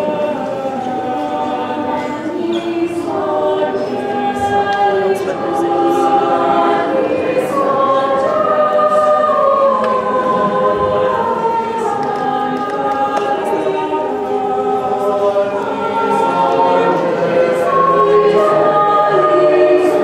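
Mixed choir of men and women singing in several parts, holding long notes, growing louder after the first few seconds.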